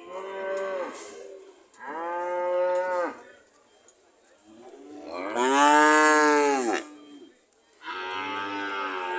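Cows mooing: four long moos in turn, the third the loudest, its pitch rising and then falling. Near the end two cows call at once.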